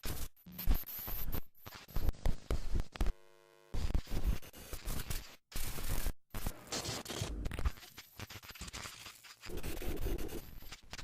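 Broadcast signal breaking up into harsh crackling static that cuts in and out with sudden dropouts, with a short buzzing tone about three seconds in.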